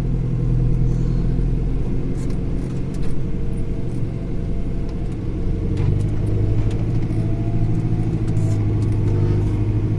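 Engine of a farm vehicle running steadily, with a deep hum that grows stronger about six seconds in and a faint rising whine above it.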